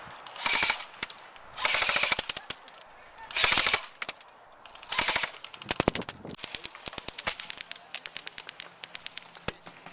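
Airsoft guns firing in full-auto bursts: four loud bursts of rapid clicks in the first five seconds or so, followed by a longer stretch of quieter, scattered shots.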